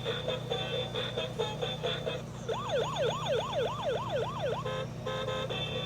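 Fire-truck-shaped electric bubble gun's electronic sound effect: a short, bright beeping tune alternating with a wailing siren that sweeps up and down about four times a second for about two seconds in the middle. A steady low hum from its bubble-blowing fan runs underneath.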